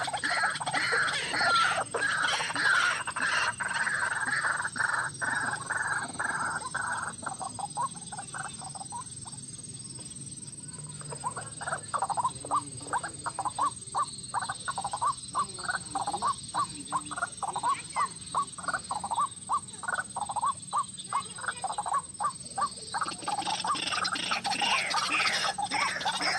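White-breasted waterhen (ruak-ruak) calling: a dense run of calls, a short lull about a third of the way in, then a steady series of repeated calls about two a second, building back into dense calling near the end.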